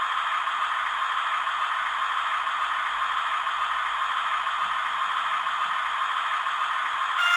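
Fleischmann N gauge diesel multiple unit's DCC sound decoder playing a steady diesel engine running sound through its small onboard speaker, thin and rattly.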